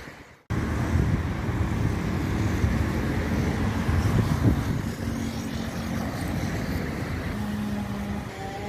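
Steady road traffic noise from a busy multi-lane avenue, cars passing with occasional louder swells. The sound drops out briefly about half a second in, and a steady low hum joins near the end.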